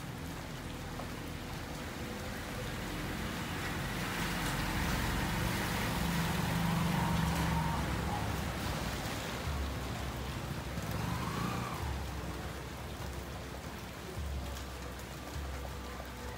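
Steady rain falling on a street, with motor vehicle engines passing; one swells louder through the middle and fades away, and another rumbles in low toward the end.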